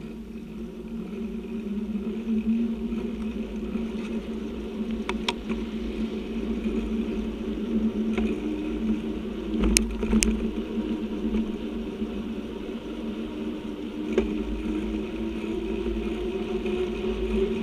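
A vehicle running steadily, a hum that holds its pitch with a low rumble beneath it, broken by a few sharp clicks about five and ten seconds in.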